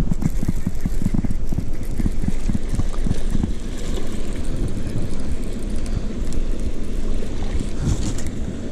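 Wind buffeting the camera's microphone: a loud low rumble that comes and goes in gusts.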